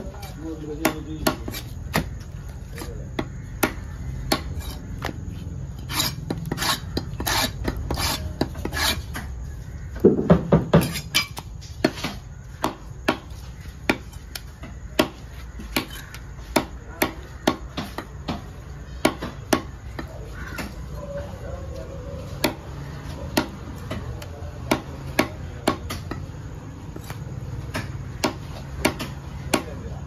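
Heavy knife chopping parrot fish into pieces on a wooden log block: sharp blade strikes about once or twice a second, with a fast flurry of blows about ten seconds in, over a steady low background rumble.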